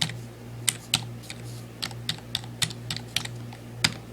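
Computer keyboard keys clicking in an irregular run of about a dozen keystrokes as a network password is typed in, over a steady low hum.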